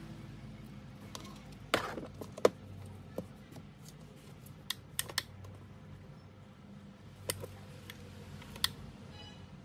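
Handling noise on a hard tabletop: a scatter of sharp clicks and light taps, loudest about two seconds in, as an LED strip is laid down and a soldering gun is picked up, over a faint low hum.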